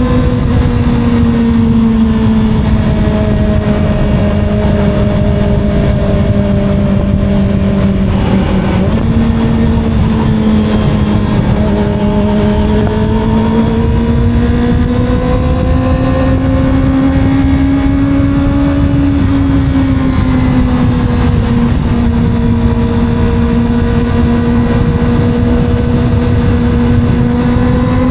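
Small Kawasaki sport motorcycle engine running while riding at fairly steady revs, its even tone drifting slowly up and down, with a brief dip and step about nine seconds in. Wind and road rumble run underneath.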